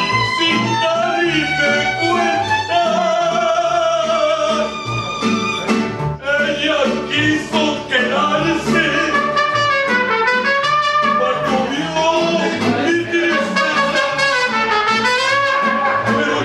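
A mariachi band playing: violins, guitars and trumpet, with a man singing over them.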